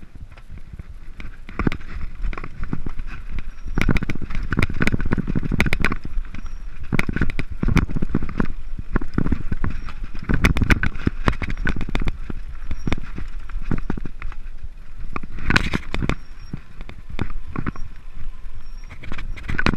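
Mountain bike rattling down a rocky dirt trail: tyres crunching over stones and loose earth, with loud, irregular knocks and clatter as the bike hits rocks.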